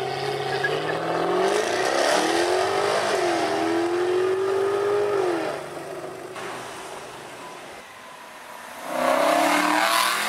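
Jaguar F-Type V8 S's supercharged V8 accelerating hard, engine note climbing with a shift about 3 s in, then dropping off as it lifts about 5 s in. Near the end another car's engine revs briefly and loudly.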